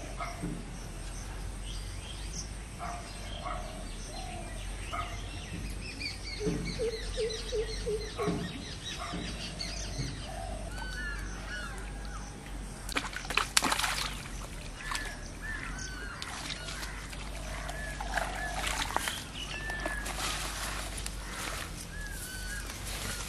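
Small birds chirping over and over in short arching calls, with a few lower repeated calls in the first third. About halfway through comes a short loud burst of noise, with more noisy stretches later on.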